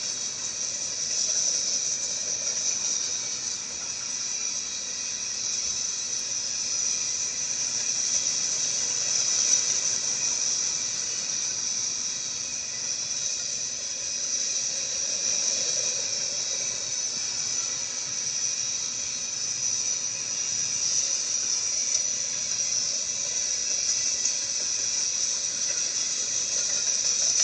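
Freight train cars rolling past on the rails, making a steady high-pitched hiss and squeal of wheels on rail.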